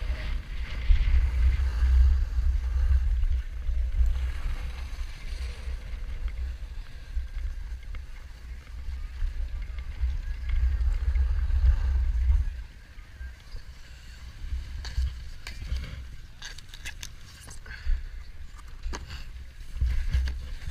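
Wind rumbling on an action camera's microphone during a snowboard run, with the hiss of the board sliding over snow. The rumble drops away about two-thirds of the way through as the rider slows, and a few sharp clicks and scrapes follow near the end.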